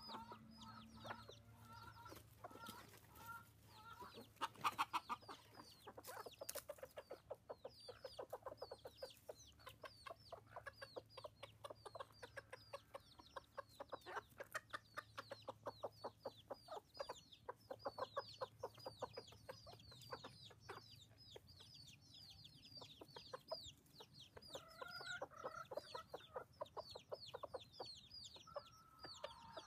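Chickens feeding. Chicks peep all through with short, high, downward-sliding peeps. Hens cluck low and softly near the start and again near the end. In the middle a long run of rapid, low clucks plays out: a rooster's tidbitting call, calling the flock to food.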